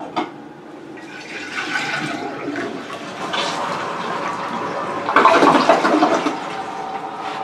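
A TOTO Eco Guinevere one-piece toilet (1.28 gallons per flush) flushing on its first test after installation. The rush of water builds and is loudest about five seconds in, then settles into a steadier run of water.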